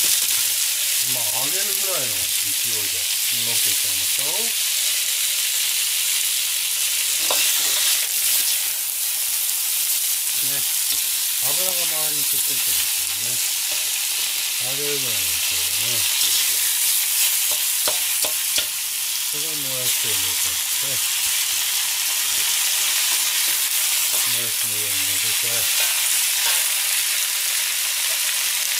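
Bok choy and bean sprouts sizzling in hot oil in an iron wok, a steady loud hiss, stir-fried with a metal ladle that clicks against the wok now and then.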